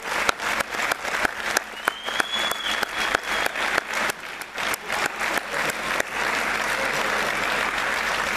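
Crowd applauding, with sharp single handclaps close by standing out over the first six seconds. After that the applause turns into an even, dense patter.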